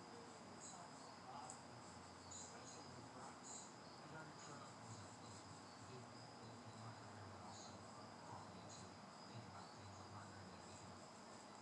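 Near silence with faint insect chirping: short high-pitched chirps repeating irregularly over a low steady hum.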